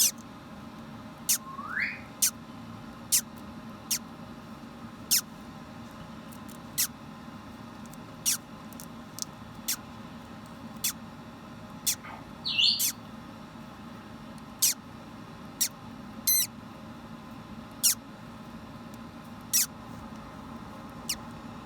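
Parrot chick in the egg during hatching, giving short sharp high peeps about once a second, with a rising call near the start and longer wavering calls about halfway through, over a steady low hum.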